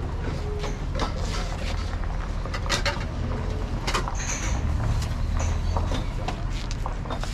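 Outdoor seafood market ambience: a steady low hum under scattered clicks, knocks and clatter, with no clear voices.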